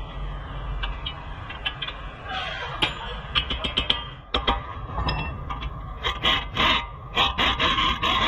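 Metal clinks of a socket and extension being fitted onto a suspension bolt, then a pneumatic impact wrench hammering in short bursts near the end.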